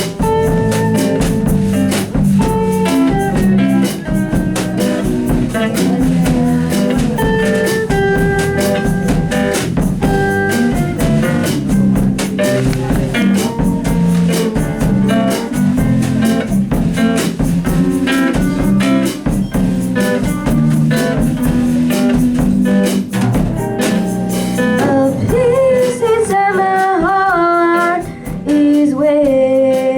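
Blues-style band music with guitar and a drum kit keeping a steady beat; a voice comes in singing near the end.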